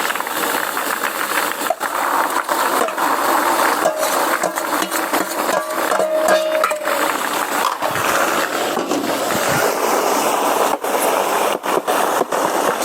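Doubanjiang (broad bean chili paste) frying in hot oil in a pan while being stir-fried: a steady sizzle full of small pops and spatula scrapes, as the paste is cooked down until crisp.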